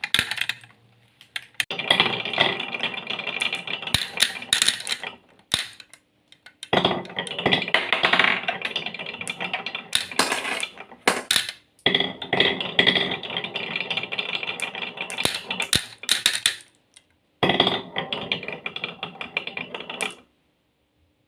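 Marbles rolling and clattering down a marble-run track with many quick clicks, in four or five runs of a few seconds each with short pauses between, stopping about a second before the end.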